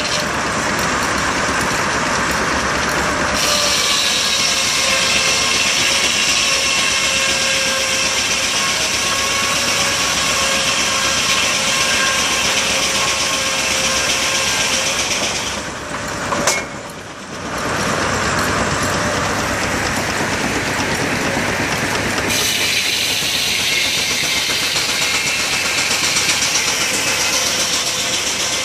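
Mobile steam engine driving an antique circular sawmill: steady, loud machinery running with a high hissing layer that comes and goes. The sound drops away briefly about two-thirds of the way through, with a sharp click, then picks back up.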